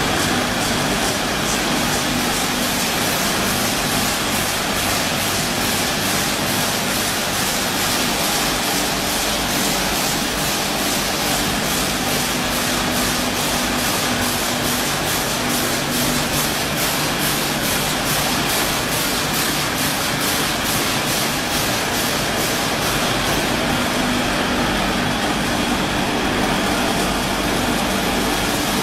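Automatic coal-granule packing machine line running: a steady mechanical noise with a fast, regular ticking.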